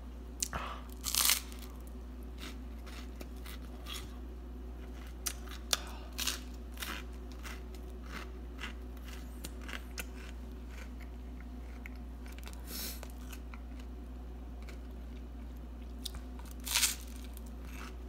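A person chewing crispy toasted garlic bread close to the microphone: irregular crunching, with louder crunches about a second in and around six, thirteen and seventeen seconds.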